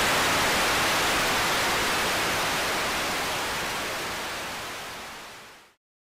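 Television static: a steady, even hiss of white noise that slowly fades and then dies away about five and a half seconds in.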